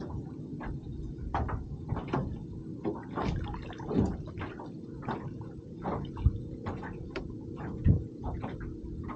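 Irregular light knocks and clicks, a few louder, over a steady low hum.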